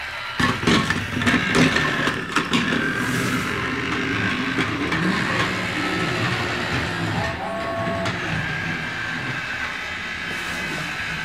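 Small battery-powered toy train running along its track, its motor whirring steadily. A few sharp knocks come in the first couple of seconds.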